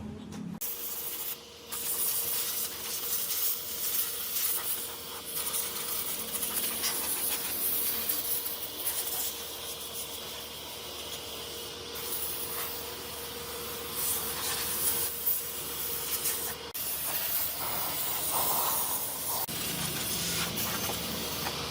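Steady hissing noise, like air or spray, with a faint steady hum under it that stops about three-quarters of the way through.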